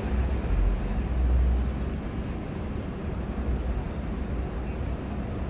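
Yellow taxi cab in motion, heard from inside: a steady low rumble of engine and road noise that swells briefly in the first two seconds, then settles.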